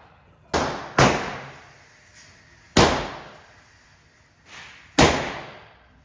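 Gunshots in an indoor concrete shooting range, each a sharp crack with an echoing tail off the walls. There are five shots at uneven spacing: three loud ones about a second, three seconds and five seconds in, and two quieter ones just before the first and the last.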